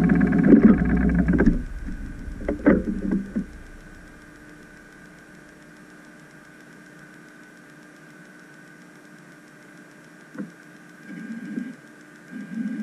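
Electric thruster motors of an underwater ROV running in short bursts, the longest and loudest right at the start and briefer ones a couple of seconds in and again near the end, over a steady faint hum.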